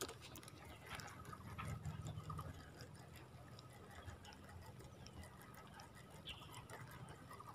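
Faint, fast ticking of a spinning fishing reel being wound slowly to work a cast lure, over a faint low rumble.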